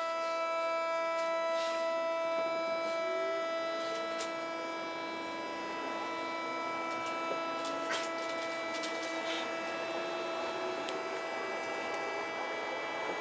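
Tokyo Metro 8000 series train heard from directly above its Mitsubishi thyristor armature-chopper controller: the chopper's steady high whine, several tones at once, with a lower whine slowly rising in pitch as the train gathers speed. A few sharp clicks come through, two near the start and two more about two-thirds of the way in.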